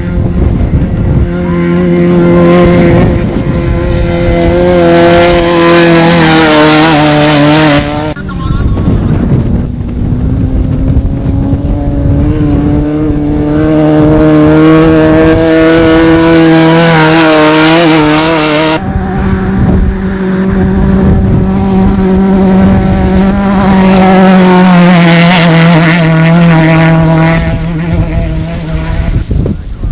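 Off-road desert race vehicle engines running hard at high revs, loud, with a steady engine note that shifts abruptly twice.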